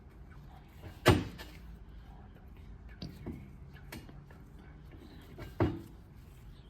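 Two sharp knocks about four and a half seconds apart, with a few lighter clicks between them.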